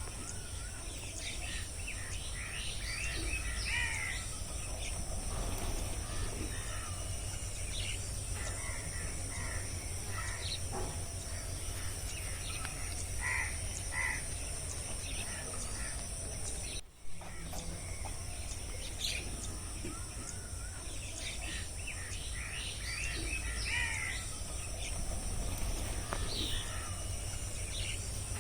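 Forest ambience of many small birds chirping and trilling, over a steady high-pitched insect drone and a low rumble. The sound drops out for a moment about two-thirds of the way through.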